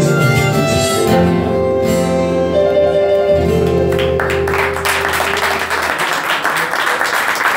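Live violin, acoustic guitar and keyboard playing the closing bars of a song and ending on a held chord, as audience applause and clapping break out about four seconds in.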